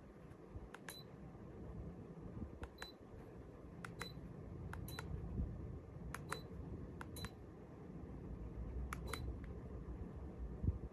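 Ceiling fan remote control buttons pressed about eight times, mostly in quick pairs, each press answered by a short high beep from the fan's receiver buzzer, over a low steady hum.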